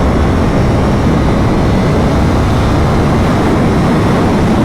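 Steady wind rush over a helmet-mounted microphone on a Yamaha R1 sport bike ridden at highway speed, with the engine's note blended in.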